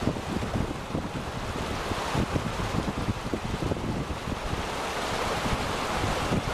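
Wind buffeting the microphone over the steady rush of a fast-flowing river.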